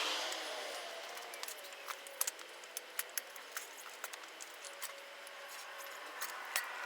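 Scattered light clicks and scrapes of a tire iron working a Dunlop Geomax front tire's bead onto the rim, at irregular moments.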